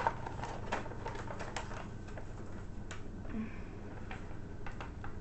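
Protective cover sheet peeling off the sticky adhesive of a diamond-painting canvas, crackling with quick clicks and ticks, dense for the first second and a half, then a few scattered clicks.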